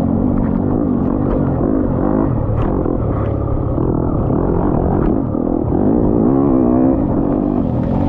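Engine of an off-road racing machine running hard, its pitch rising and falling continuously as the throttle is worked.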